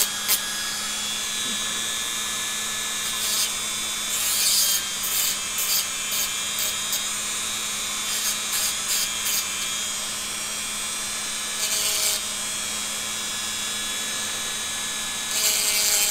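Handheld rotary tool running steadily with an abrasive point, with short rasping bursts every few seconds as a small metal part from the Bodeo revolver's Abadie loading gate is pressed against it. It is grinding off peening to make the part flatter.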